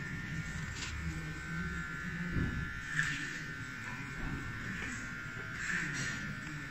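Electric beard trimmer buzzing steadily as it runs along a beard, with two brief louder, coarser patches about three and six seconds in as it cuts through the hair.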